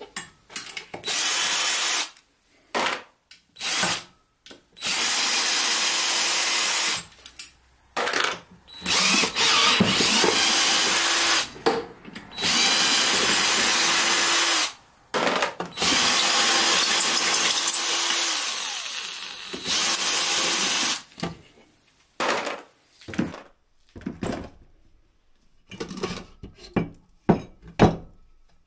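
Cordless drill/driver whirring in a series of steady runs, each a few seconds long, backing the housing screws out of an electric garden pump. Near the end come a few short knocks and clatters as the parts come apart.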